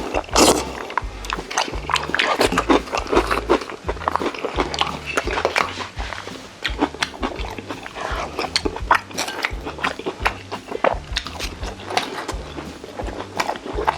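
Close-miked eating sounds: a person biting and chewing braised chicken, with irregular wet clicks and smacks from the mouth.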